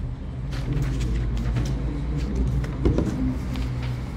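A steady low rumble, with scattered light clicks and one louder thump about three seconds in.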